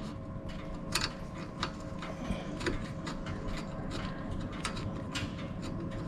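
Small 8 mm nut being turned off a bolt by hand, giving faint, irregular metallic clicks and ticks over a faint steady hum.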